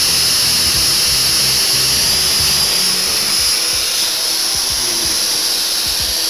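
Oxyhydrogen (HHO) torch burning, fed with HHO gas and compressed air: a steady, loud hiss of the gas jet and flame.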